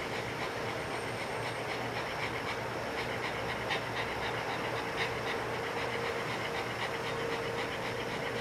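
A pug panting in a fast, even rhythm, the laboured breathing of a short-nosed dog with brachycephalic syndrome and kennel cough. Two breaths in the middle are louder. A steady hum runs underneath.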